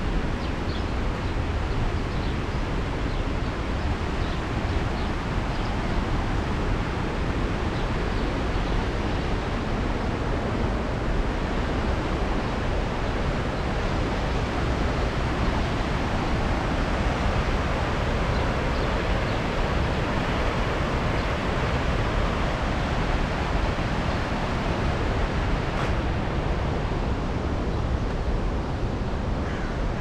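Steady rush of water from the waterfall and the fast river below it.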